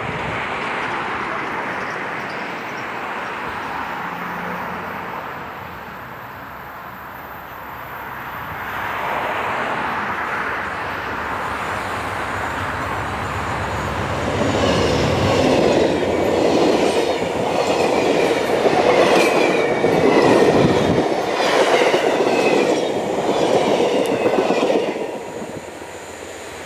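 Amtrak P42DC diesel locomotive and passenger cars passing at speed. There is a rising rush as the train approaches. From about halfway through comes roughly ten seconds of loud wheel clatter over the rails with a high ringing, which fades quickly as the last car goes by.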